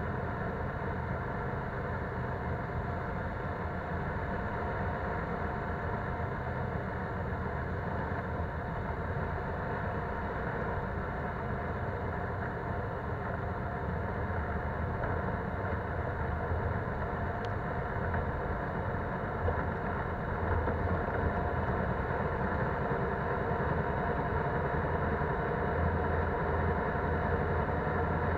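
Polaris Sportsman 570 ATV under way, its single-cylinder engine running steadily. Tyre noise from the dirt trail runs under it, and the sound grows slightly louder near the end.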